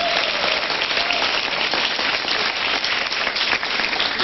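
Studio audience applauding: dense, steady clapping.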